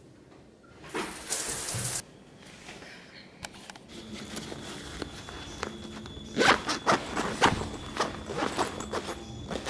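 Handling noises: a brief swish about a second in, then rustling and a quick run of sharp clicks, loudest between six and seven and a half seconds in, with a zipper-like sound.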